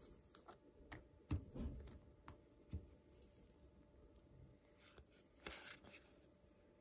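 Faint taps and soft knocks as foil Pokémon booster packs are laid on a glass tabletop by gloved hands, with a brief rustle of trading cards being handled near the end.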